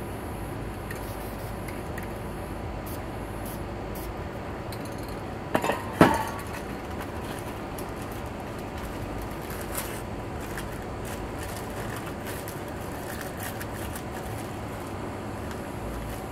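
Metal aerosol spray-paint cans knocking and clinking together as they are handled on a table: two sharp clanks close together about six seconds in, with a few lighter clicks, over a steady background hiss.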